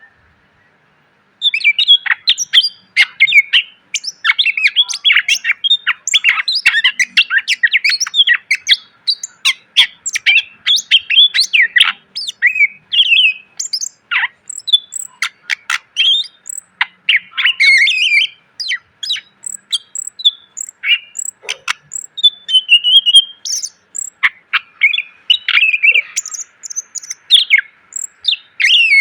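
Cucak ijo (leafbird) singing a fast, unbroken song of sharp chirps, whistles and trills, packed with varied fill notes. The song starts about a second and a half in, after a brief silence.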